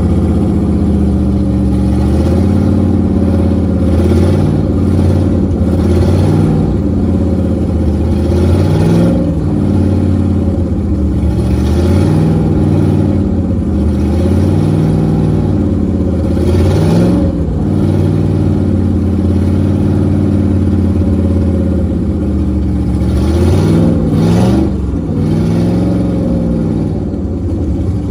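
LSA-swapped LS V8 with a Brian Tooley Stage 2 cam in a Formula 242LS sterndrive boat, running on the trailer with water fed from a hose. It idles and is revved lightly, the pitch rising and falling every few seconds.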